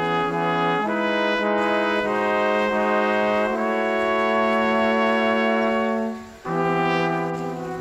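Background music of slow, held brass chords that change a few times, with a short break about six seconds in.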